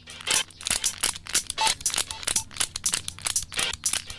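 Clear plastic packaging crinkling and rustling as it is handled, in quick, irregular rustles.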